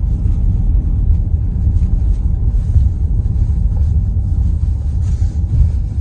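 Steady low rumble inside a moving car's cabin as it drives slowly along a rough lane: engine and tyre noise.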